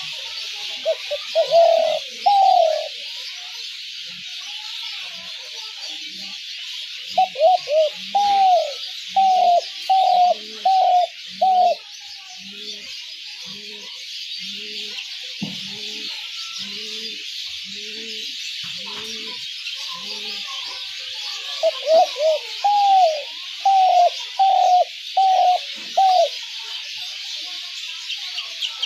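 Spotted dove calling in three bursts of quick repeated cooing notes, with a fainter, lower series of coos about a second apart between the second and third bursts.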